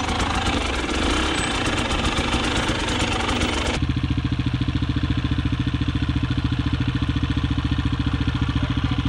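KTM enduro dirt bike engine idling. About four seconds in, the sound changes abruptly to a steadier idle with an even, rapid pulse.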